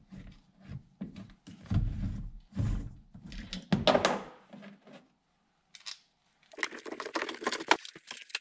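Irregular clicks and knocks of a hand tool and metal seat-back bracket as the bolt holding a pickup's bench-seat back is worked loose. After a short silence comes a quick clatter of rattles and knocks as the seat back is handled out of the cab.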